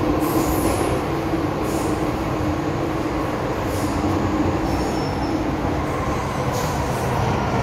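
MTR M-Train metro car running through an underground tunnel, heard from inside the carriage: a steady rumble of wheels and running gear with a wavering low hum and a few short high hisses.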